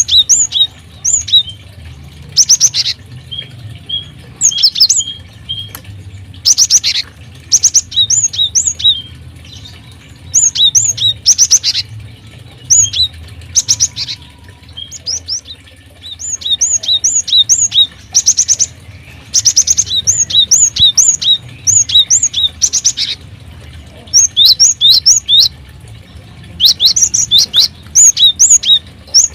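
Small caged birds in an aviary chirping busily: runs of short, high, quick chirps repeated throughout, broken by brief harsher bursts of noise.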